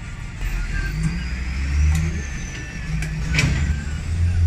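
A motor vehicle engine running, a low rumble that swells and eases, with one sharp click about three seconds in.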